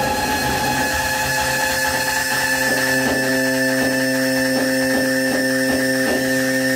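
Live electronic music played on tabletop electronic instruments: several steady droning tones held together. A little over two seconds in, a regular clicking pulse joins them at about two to three clicks a second.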